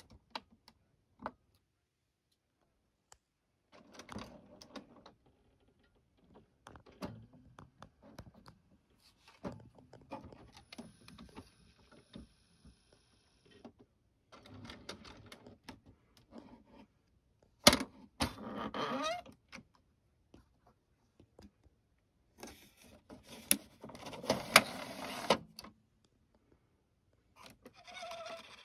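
Epson XP-6000 inkjet printer starting up after being switched on: short spells of motor whirring, clicking and clunking from its mechanism, with a sharp click and a rising whine about two-thirds of the way through and a longer stretch of running a little later.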